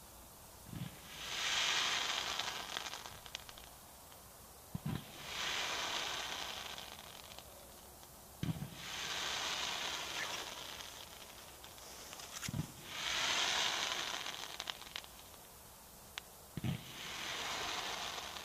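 Kometa P7963 Nowa Fundlandia 1.2-inch, 130-shot firework cake firing five volleys about four seconds apart. Each volley is a short low thump followed by a long hiss of sparks that fades over two or three seconds, with a few sharp cracks.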